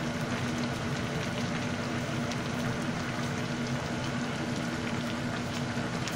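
Kimchi stew simmering in a stainless-steel pot on a gas stove: steady bubbling with many small pops, over a faint low hum.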